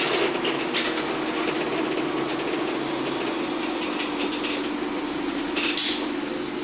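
Inside a 1999 Nova Bus LFS transit bus under way: a steady drivetrain whine at one held pitch over road noise and the roof air-conditioning fans on full blast. Short rattles sound at the start and again near the end.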